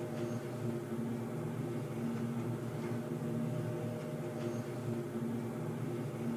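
Underground ambience sound effect: a steady low droning hum made of several tones, some of them swelling and fading, over a faint hiss.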